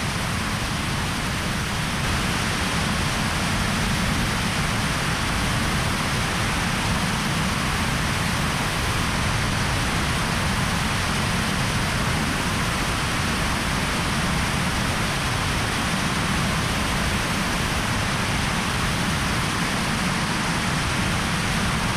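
DHX-400 'Nimbus' hybrid rocket engine firing steadily on a static test stand: a loud, even rush of noise across all pitches, with no change in level or pitch.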